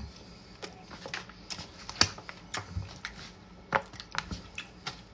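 Irregular clicks and scrapes of a disposable razor being used as a fork, twirling spaghetti and knocking against a foam takeout container. The sharpest click comes about two seconds in.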